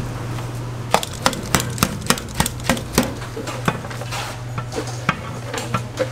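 Kitchen scissors snipping through a bowl of boiled glass noodles, with sharp snips about three a second, over a steady low hum.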